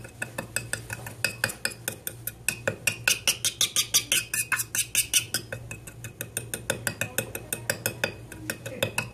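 A thin metal instrument clicking and scraping against the inside of a small stainless steel bowl in quick, even strokes, about six a second, while bone graft particles are mixed with a PRF clot into a putty.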